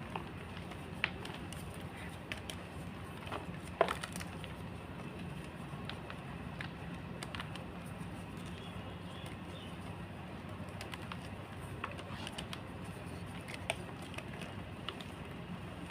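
Gym chalk being crushed by hand: scattered single crunches and crackles, the loudest about four seconds in, over a steady low background hum.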